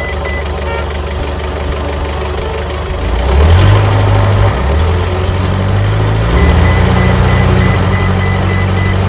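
Cartoon truck engine sound effect: a low engine drone that rises in pitch and gets louder about three seconds in, then steps up again around six seconds as it revs.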